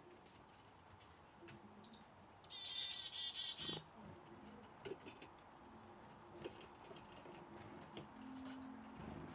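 Chickadee giving its chick-a-dee call, played from a bird video through a TV's speaker. About two seconds in come a few quick high notes, then a run of buzzy dee notes lasting about a second and a half.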